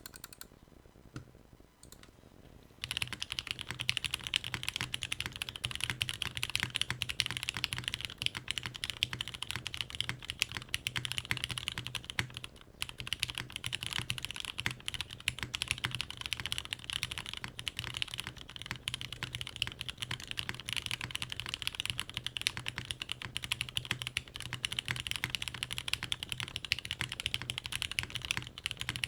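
Steady, fast typing on a Bauer Lite gasket-mount keyboard with lubed and filmed Cherry MX Black Hyperglide linear switches, a polycarbonate plate and GMK ABS keycaps. It is a dense, continuous stream of keystroke clacks that starts about three seconds in and breaks once, briefly, less than halfway through.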